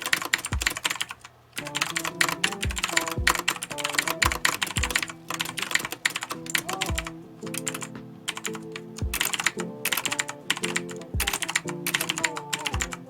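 Fast typing on a Redragon Kumara K552 mechanical keyboard with Outemu Blue clicky switches: a dense run of sharp key clicks, with a brief pause about a second in. Background music with a beat plays underneath.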